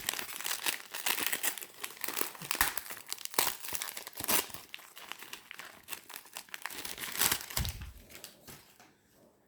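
Wrapping being crinkled and torn off a boxed oracle card deck as it is unwrapped by hand, an irregular run of sharp crackles with a low bump about three-quarters of the way through, dying away near the end.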